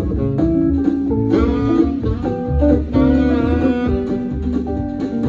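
Saxophone playing a melody into a microphone over a recorded backing band with guitar and bass, in an instrumental break of a country song.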